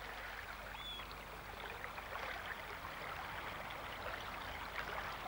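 Incoming tide water running and trickling over estuary sands: a steady hiss of flowing water with fine crackles. A short high whistle sounds about a second in.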